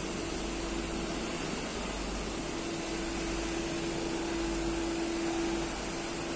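Steady mechanical hum and hiss, with a faint held tone that drops out a few times.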